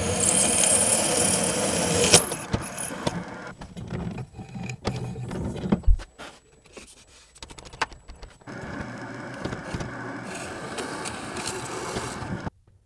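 Drill press running with its bit cutting, a steady noise with a high whine, which stops with a sharp knock about two seconds in. Then a run of small clicks and knocks from workpieces being handled on the steel vise, with one heavy thump near the middle, before a steady running noise comes back for the last few seconds.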